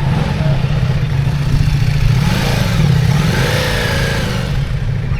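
Motorcycle engine running, growing louder and then easing off around the middle.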